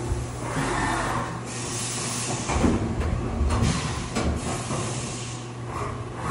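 Haas CNC vertical mill with flood coolant running, its spindle pulling up away from the part between cuts: a steady machine hum with a hiss, then a run of mechanical clunks and thumps about two to four seconds in.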